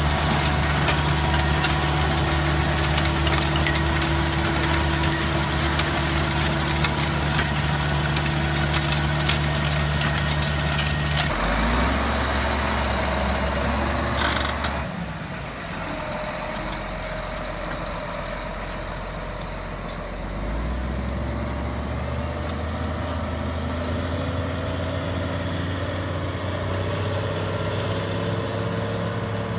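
Tractor diesel engines running steadily under load while pulling soil-working implements, in several clips cut one after another. First a tractor driving a rotary tiller, with many sharp clicks from the implement; after cuts about 11 and 15 seconds in, a tracked tractor pulling a ripper, quieter at first and louder again from about 20 seconds in.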